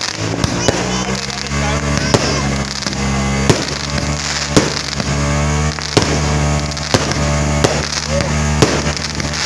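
Aerial fireworks bursting, a sharp bang every half second to a second with crackle between, over music with low notes held steadily.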